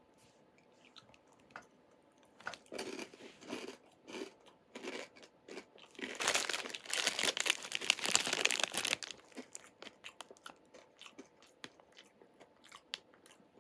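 A person biting and chewing a crunchy Smith's Scampi Fries cereal snack, in short repeated crunches that start a couple of seconds in. Midway there is a louder, denser stretch of crackling for about three seconds, then fainter chewing.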